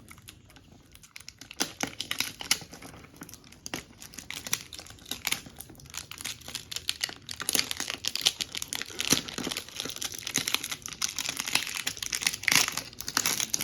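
Packaging crinkling and crackling as it is cut and torn open with scissors, in irregular bursts that grow louder and busier about halfway through.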